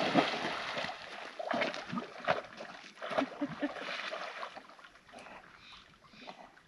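Water splashing as a dog goes into the lake after a thrown stick and swims out. A big splash fades over the first second, followed by smaller, scattered splashes that die away.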